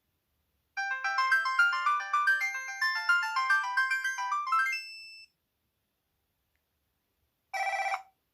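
Lobster 700TV (HTC Monet) phone playing a ringtone preview: a quick melody of short notes for about four and a half seconds. About seven and a half seconds in, a half-second snippet of the next ringtone starts and cuts off abruptly.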